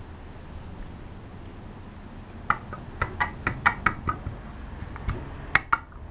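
Sharp clicks and knocks from the armature of a ZY1020 48 V 1,000 W brushed motor being worked by hand inside its steel can of permanent magnets. There are about a dozen irregular clicks, starting about halfway through and ending just before the end.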